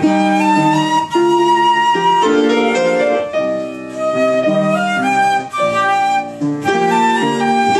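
Flute and piano playing a piece together, a string of held and changing melody notes over piano accompaniment.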